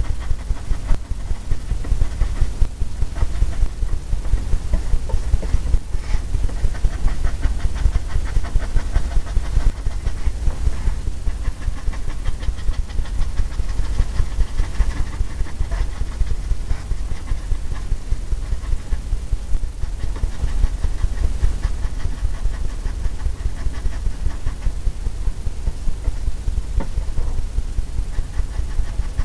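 Paintbrush tapping on a stretched canvas, with quick, repeated dull thumps, several a second, that the taut canvas carries as a deep rumble.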